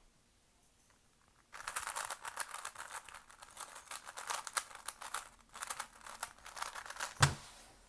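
A 3x3 speedcube turned rapidly, its layers clicking and rattling in quick runs with a short pause partway, then a single loud thump near the end.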